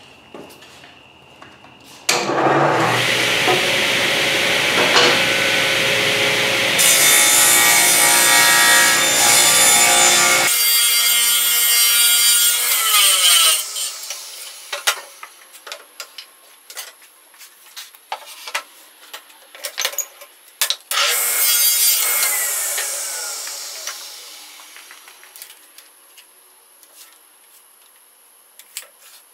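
Power saw cutting wood for about eight seconds, then switched off and winding down with a falling whine. A second shorter run about twenty seconds in also winds down, with scattered knocks of wood being handled between the two.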